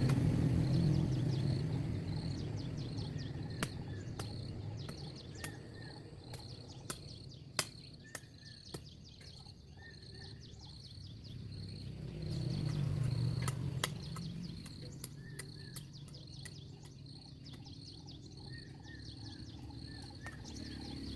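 Outdoor ambience of small birds chirping in short repeated calls, with insects, over a low rumble that swells near the start and again about halfway through. A number of sharp clicks sound in between.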